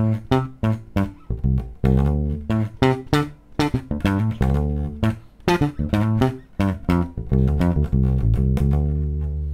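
Fender Jazz Bass played fingerstyle close to the neck: a quick line of plucked notes, about three a second, with a deep, muted tone like a Precision Bass. The last note is held and rings on near the end.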